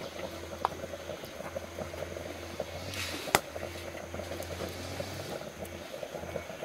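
Open wood cooking fire with covered pots on it, crackling and simmering in a dense run of small ticks and pops, with one sharp snap about three seconds in.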